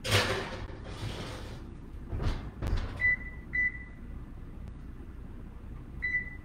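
A baking sheet is slid into an electric oven with a metal scrape, and the oven door shuts with a couple of knocks. Then the range's control panel beeps as its buttons are pressed: two short beeps, and a longer one near the end.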